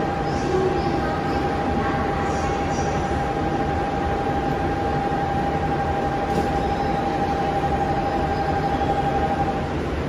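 Station departure bell ringing as one steady electronic tone for nearly ten seconds, cutting off just before the end, over the hum of a commuter train standing at the platform: the signal that the doors are about to close and the train depart.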